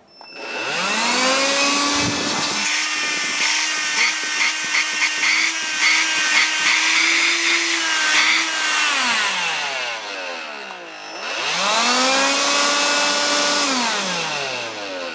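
Electrolux Ergorapido Lithium cordless vacuum's fan motor spinning up to a steady high whine with a rough crackle, winding down, then spinning up once more and winding down near the end. It has a harsh, grinder-like edge that the owner puts down to badly worn motor bearings.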